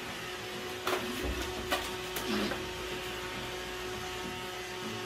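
Robot vacuum cleaner running with a steady hum, with a few sharp knocks about a second in and just before and after two seconds as a cat bats at it with its paws.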